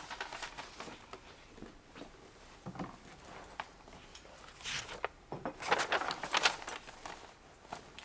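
Footsteps and the light clinks and rustles of a tray of mugs being carried in and set down, busiest a little past the middle.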